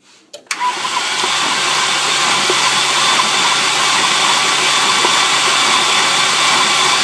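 Ford 4.6-litre V8 being cranked over by its starter: a click, then a loud, steady run of mechanical noise that starts about half a second in. It is turning over to pump oil up to the heads through the freshly cleared oil restrictor.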